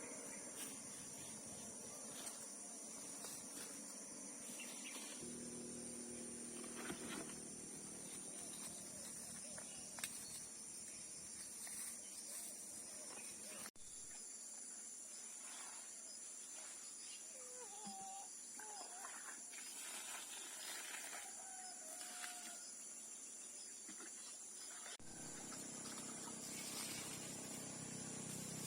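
Outdoor farm ambience: a steady high insect drone, with a few short chicken calls about two-thirds of the way through and scattered light knocks.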